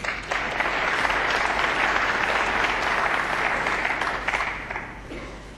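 Audience applauding, starting at once, holding steady, then dying away near the end.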